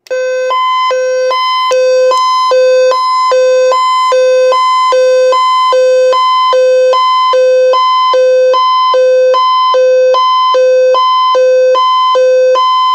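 Weather radio's built-in siren test: a loud, buzzy two-tone alarm alternating steadily between a low and a high pitch, each held about 0.4 seconds, with no pause.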